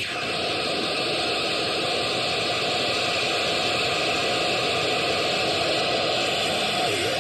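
Experimental sound machine giving out a steady, dense noise drone, hiss and rumble together, with a small gliding pitch near the end.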